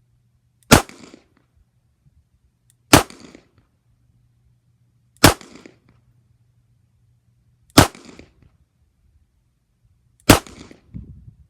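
Five single shots from a Colt Agent .38 Special snub-nose revolver loaded with 125-grain powder-coated lead Cowboy Action rounds, fired slowly about two and a half seconds apart. Each shot is a sharp report with a short echo.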